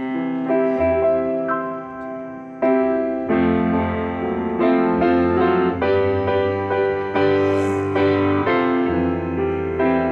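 Piano or keyboard playing the introduction to a gospel song, with sustained chords that change every second or so.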